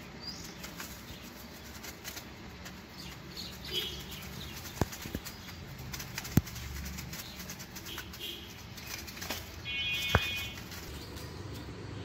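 Quail moving about and flapping their wings in wood-shavings bedding, with rustling, a few sharp taps and faint high chirps. A short call comes about ten seconds in.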